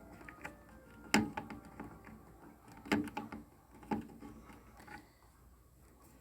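Small clicks and knocks of a wire plug being pushed onto a microwave oven's door switch and parts being handled, with three louder knocks about a second in, near the middle and about four seconds in.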